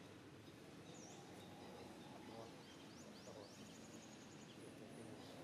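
Near silence: faint outdoor background noise, with a run of faint, high, rising chirps from about a second in until near the end.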